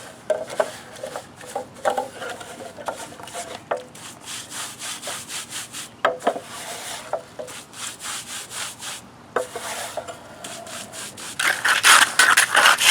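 Trowel scraping and spreading a thin layer of fine concrete mix over a rough concrete surface, in many short repeated strokes. The strokes grow louder near the end.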